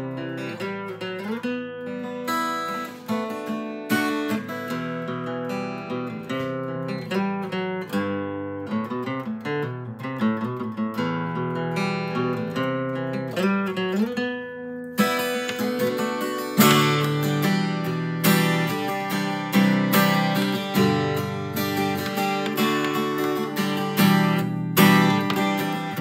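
Solo acoustic guitar playing a melody, with single notes that slide in pitch, turning to fuller, louder strummed chords about halfway through.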